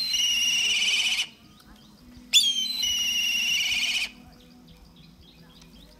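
Eagle calling twice, about two seconds apart. Each call is a sharp high note that drops into a rapid, quavering high trill of a second or so; the first is already sounding at the start.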